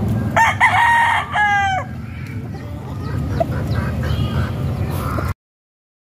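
A rooster crowing once, starting about half a second in, ending in a falling note, over a steady low background rumble. The sound cuts off suddenly shortly before the end.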